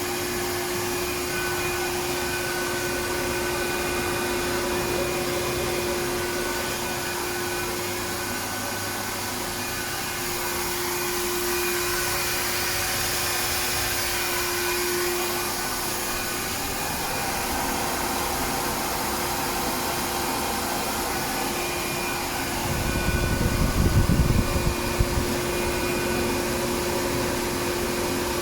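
Waste-oil burner in a pellet stove running: a steady blower hiss with a constant hum. About 23 seconds in, a low rumble swells for a couple of seconds.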